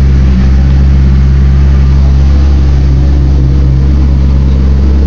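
Maserati Spyder's 4.2-litre V8 idling steadily through a Larini Club Sport X-pipe and sports muffler aftermarket exhaust, with a deep, even rumble.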